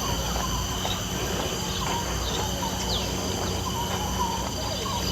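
Wild birds chirping and whistling in short calls, with a quick falling note about three seconds in. Underneath runs a steady high-pitched drone and a low steady hum.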